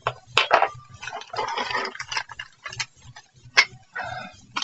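Decal sheet and small plastic model parts being handled and moved on a work surface: paper rustling with a series of sharp clicks and taps, the loudest about half a second in and again near three and a half seconds.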